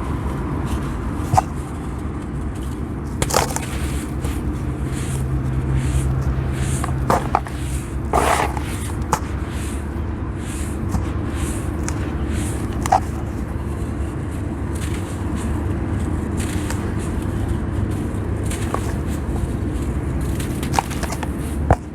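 Damp sand being crumbled and smashed by hand, with soft gritty crunches and scattered sharp crackles and clicks, over a steady low hum.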